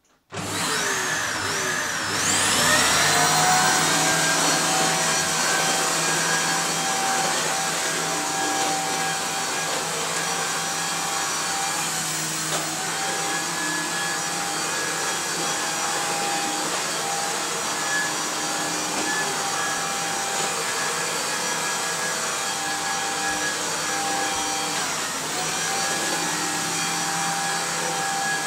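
Dyson Cinetic Big Ball Animal cylinder vacuum switching on, its motor spinning up with a rising whine over the first few seconds, then running steadily as the turbo tool is pushed over a hard floor. The pitch sags briefly twice, once about halfway through and once near the end.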